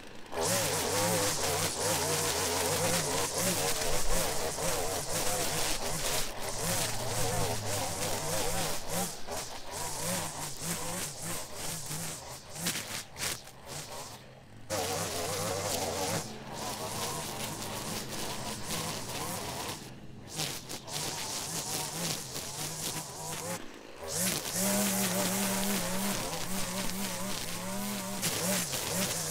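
Gas string trimmer running at high revs, a steady engine whine with its nylon line whipping through dry grass. It drops out briefly a few times.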